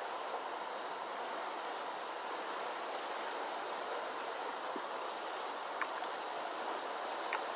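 Steady rush of a flooded creek's running water, with two brief faint clicks near the end.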